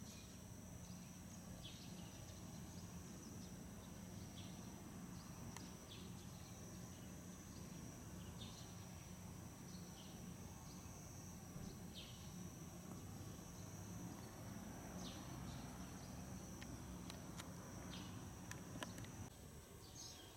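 Faint outdoor ambience: small birds giving short, falling chirps every second or two over a steady high-pitched whine and a low steady hum. A few sharp clicks sound near the end, and the hum drops away just before it.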